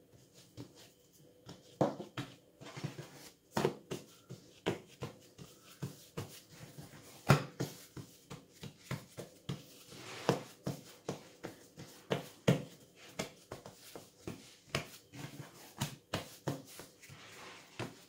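Hands patting and pressing risen bread dough flat on a countertop to knock the gas out of it: an irregular string of soft slaps and thuds, about one or two a second.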